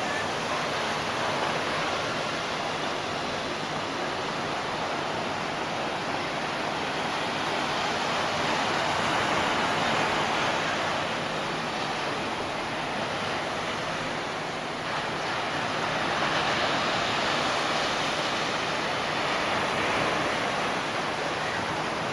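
Ocean surf breaking on the beach, a steady rush of noise that swells and eases gently.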